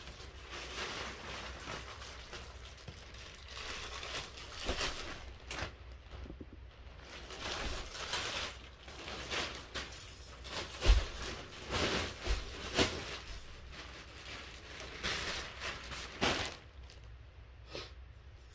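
Clear plastic wrapping crinkling and tearing as it is pulled off a crib's metal spring mattress support, with a few thumps and knocks of the frame in between.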